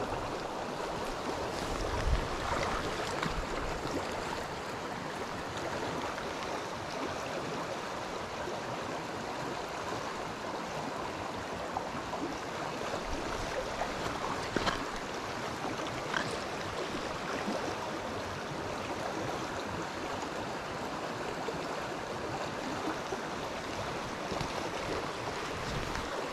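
Shallow stream riffle rushing steadily over stones, with a few brief knocks from handling close by.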